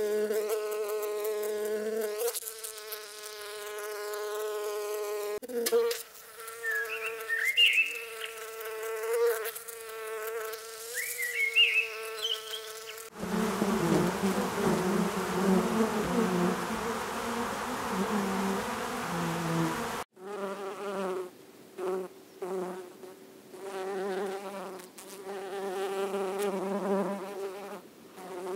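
Flying insects buzzing. First comes a steady, high wing buzz. From about halfway there is a denser, lower hum of many honeybees crowded on a honeycomb. In the last third a single bee's buzz comes and goes in short spells.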